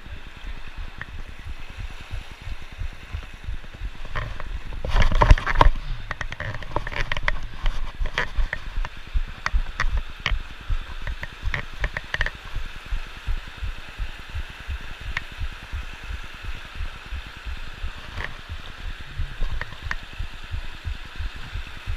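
Shallow mountain creek rushing and splashing over boulders, a steady rush. Short knocks and low thumps come over it, the loudest about five seconds in.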